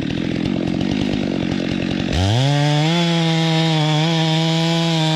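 A two-stroke chainsaw idles with a rapid, even putter. About two seconds in it is throttled up to a steady high-pitched whine at full revs.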